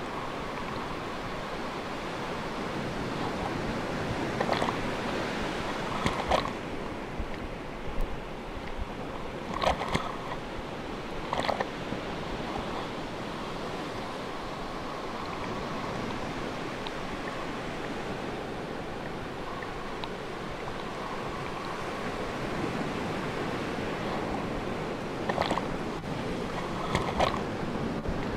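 Ocean surf washing steadily, with a few short sharp sounds standing out in pairs, about two seconds apart, three times.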